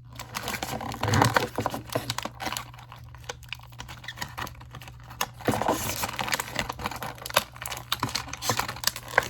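Irregular small clicks, taps and crinkles from hands handling plastic toy packaging as a fidget spinner is taken out of its opened box, over a steady low hum.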